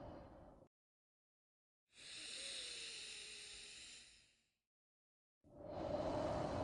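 A person's deep breathing close to the microphone: one breath fading out in the first second, a higher, hissier breath from about two seconds in, and another beginning near the end, with dead silence between them.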